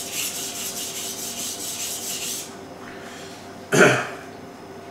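Kitchen knife blade stroked back and forth across a water-soaked 1000-grit whetstone: a quick, even rasping of about four strokes a second that stops about two and a half seconds in. Near the end, a short loud cough.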